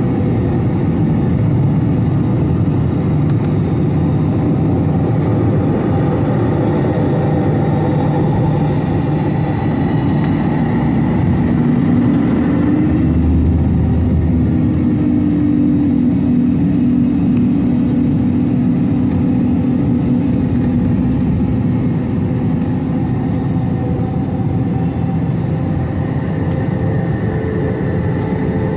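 Steady cabin noise of an Airbus A321, a loud drone of jet engines and airflow. The engine tones shift about halfway through.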